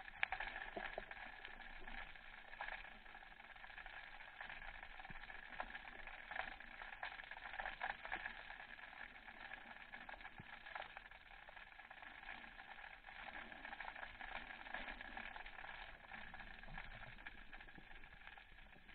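Underwater ambience picked up by a camera in its waterproof housing during a spearfishing dive: a low, steady hiss with many faint, scattered clicks and crackles.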